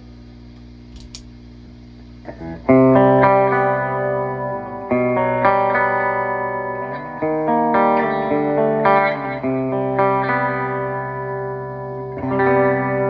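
Electric guitar (PRS McCarty 594) played through a PRS Archon 50 tube amp head into a cabinet with Celestion Vintage 30 speakers. Low amp hum for the first two seconds or so, then a chord about three seconds in; sustained chords follow, changing every second or two.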